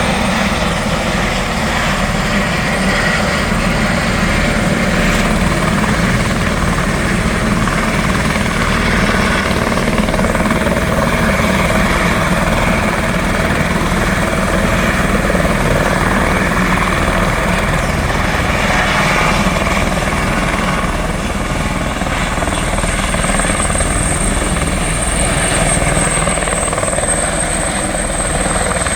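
Helicopter running close by, loud and steady, with a rapid rotor beat. A high thin whine comes in about three quarters of the way through and holds.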